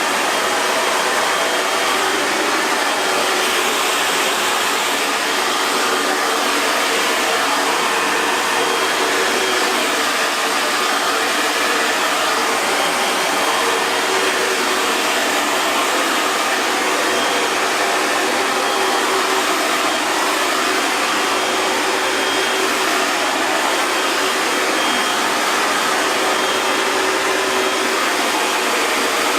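Hair dryer running steadily, a constant airy rush of blown air with a faint motor hum.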